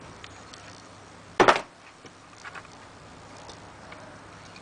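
Handling of a vintage lever padlock and its lever lifter pick wire: one brief clunk about a second and a half in, then a few faint clicks.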